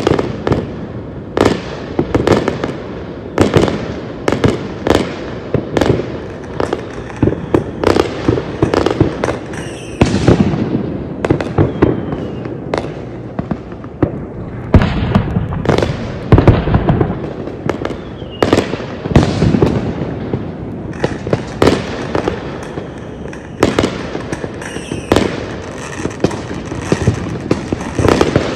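Fireworks display: aerial shells bursting in an irregular series of loud bangs, about one to two a second, over a steady noise of further bursts and their echoes.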